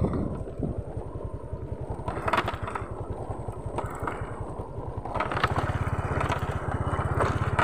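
Motorcycle engine running while riding over a bumpy gravel dirt road, with crunching and rattling from the rough surface. The engine's pulsing note grows steadier and louder about five seconds in.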